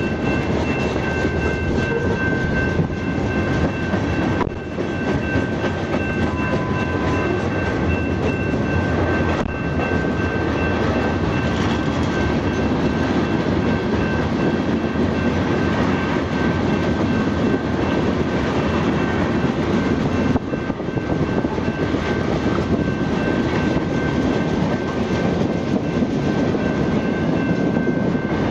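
Freight train cars rolling past at track speed: a steady rumble of steel wheels on rail. Two thin, steady high-pitched tones run over it throughout.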